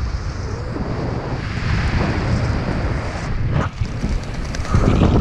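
Wind buffeting the microphone of a helmet camera during a descent under an open parachute canopy, a steady rushing noise. A few sharp rustles come near the end, where the wind grows louder.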